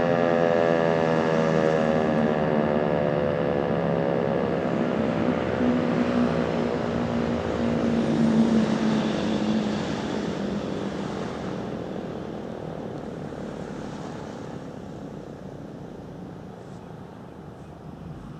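American Signal T-121 electromechanical tornado siren winding down at the end of its alert: the pitch falls steadily and the sound fades away over about twelve seconds.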